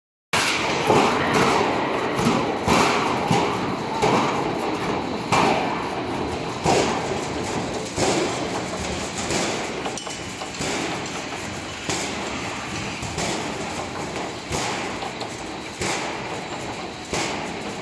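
Floor deck roll forming machine running, with steel sheet passing through its forming rollers: a steady mechanical rattle with irregular knocks and clanks about once a second.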